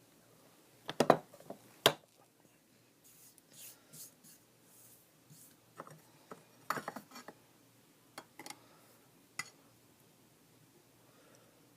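Light handling noises: scattered short knocks and clicks with faint rubbing between, a pair of louder knocks about a second in and a cluster of clicks around the middle.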